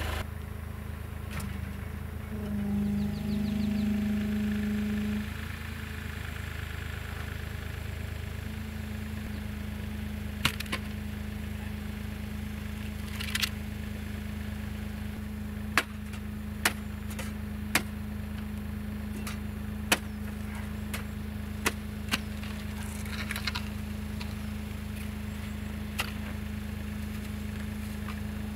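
Hitachi ZW40 wheel loader's diesel engine idling steadily, briefly louder a few seconds in. From about ten seconds in, about ten sharp, irregular strikes of a long-handled hand tool against packed snow.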